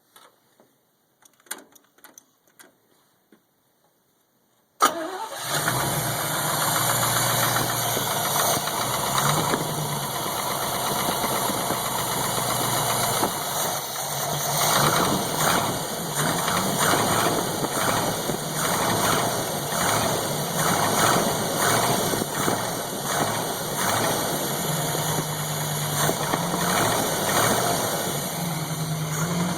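A few faint clicks, then about five seconds in a Chevrolet 283 small-block V8 starts abruptly from cold and settles into an idle with a rhythmic tick or knock. The owner suspects piston slap, since the noise goes away once the engine has run for a minute or two.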